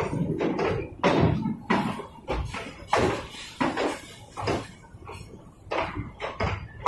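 Steel freight wagons rolling past at close range, with repeated metallic clanks and bangs over a low rumble.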